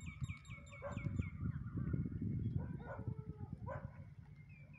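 A bird's quick run of about eight falling chirps in the first second, then a few shorter calls, over a steady low rumble.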